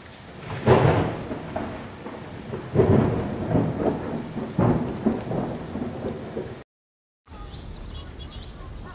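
Thunder rolling over steady rain, with three loud rumbles about two seconds apart. It cuts off abruptly, and after a moment of silence a much quieter steady background follows.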